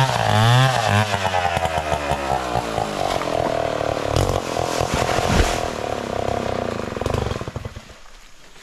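Two-stroke chainsaw let off from full throttle: the engine note falls from a high steady whine to an uneven idle. Near the end it stops.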